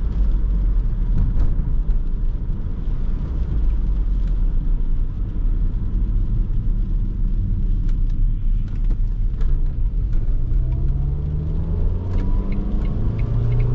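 Inside the cabin of a 2005 Renault Laguna II: its 1.8-litre 16-valve four-cylinder petrol engine and tyre noise make a steady low rumble while driving on a wet road. In the last few seconds the engine note climbs in pitch as the car pulls away and accelerates.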